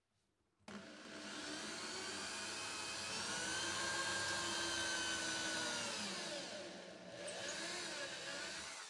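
Power drill spinning a twist bit through drywall into a wooden stud to make a pilot hole: a steady motor whine that starts about a second in, sags briefly about two-thirds of the way through, then picks up again.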